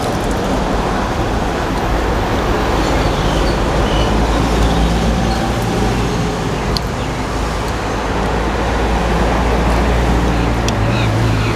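Steady street traffic: cars and trucks running past, with a low engine hum that grows stronger near the end.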